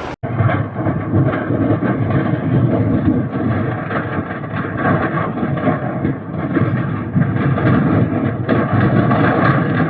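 Steady low rumbling roar of a large structure fire burning, with no single sharp bang.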